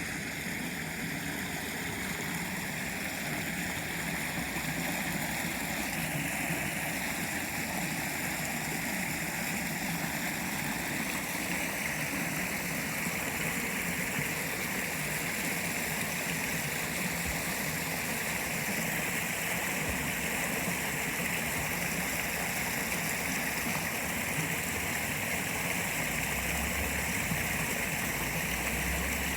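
Water from a stream falling over a waterfall into a pond, a steady rushing splash.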